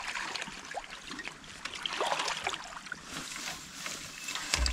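Shallow river water splashing and sloshing as a sockeye salmon is lifted out in a landing net and the angler wades, with a thump near the end.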